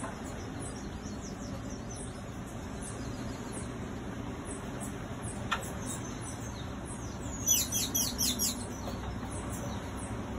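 Small birds chirping again and again, with a quick burst of loud, rapid chirps about three-quarters of the way through, over the steady low hum of the moving funicular car.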